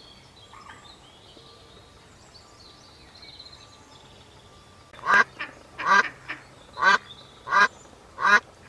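A duck quacking: after a quiet start, a run of about five loud quacks, roughly one every 0.7 seconds, with a couple of softer ones between them.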